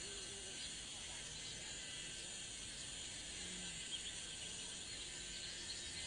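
Faint steady high drone of an insect chorus, with small flickering chirps in it.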